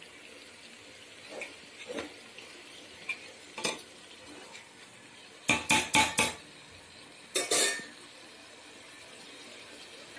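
Steel spoon stirring chicken pieces in masala in a metal cooking pot, scraping and clicking against the pot, with a quick run of four sharp knocks about halfway and another loud knock a little later. A faint steady sizzle of the masala frying runs underneath.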